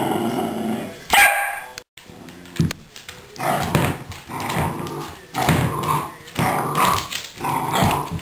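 Small terrier growling and barking in a string of short, quick bursts, with a louder bark about a second in.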